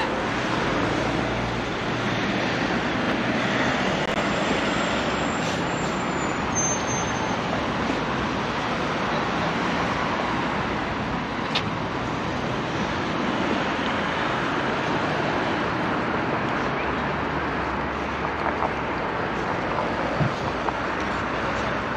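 Steady road traffic noise from cars on the surrounding roads: a continuous wash of sound with no single vehicle standing out.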